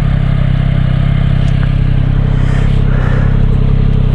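Yamaha MT-09 SP's three-cylinder engine idling steadily, an even low rumble.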